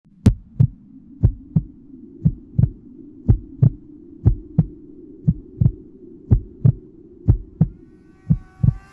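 Heartbeat sound effect: deep double thumps, about one beat a second, over a steady low hum. Faint rising tones fade in near the end.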